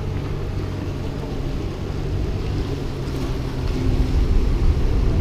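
Strong wind buffeting the camera microphone: a low rumble that gets louder near the end, over the wash of surf on the jetty rocks, with a steady low hum underneath.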